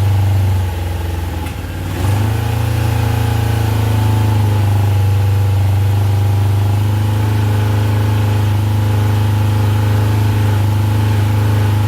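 Suzuki GSX600F inline-four engine running on its first start after a carburettor rebuild. Its note sags about a second in, picks back up about two seconds in, then holds steady.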